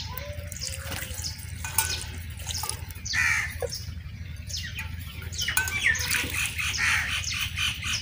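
Small caged pet parrots chirping and squawking in many quick, high calls, one louder squawk about three seconds in, while water is poured into their cage dish.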